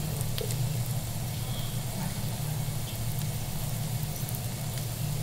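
Steady low hum with a light sizzle of a seafood pancake frying in hot oil in a pan.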